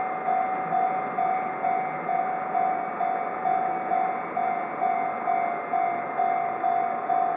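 Japanese level-crossing warning bell ringing in a steady, even 'kan-kan' rhythm, a little over twice a second.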